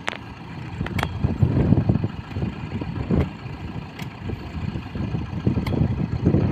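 Kubota M6040SU tractor's four-cylinder diesel engine running steadily at low revs while the tractor sits stuck in mud. Five sharp knocks, irregularly spaced, come from a shovel digging mud away from the steel dozer blade.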